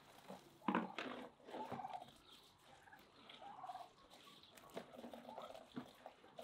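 White domestic turkeys calling several times with short pitched calls, mixed with a few sharp knocks.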